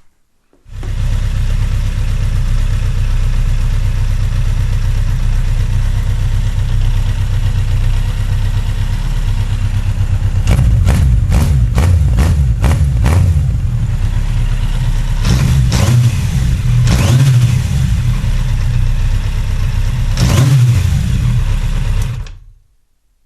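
Yamaha XJR 1200's inline-four engine running at idle, with several throttle blips in the second half. The runs of blips come about ten seconds in, around fifteen to seventeen seconds, and once more near the end. The engine has just been rebuilt with reworked valves.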